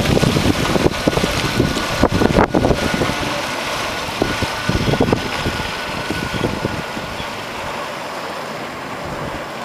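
Wind buffeting the microphone, gustiest in the first few seconds, over a steady rush of water from a passing electric outboard sportboat's wake; a faint steady whine runs beneath through the first half, and the wind eases toward the end.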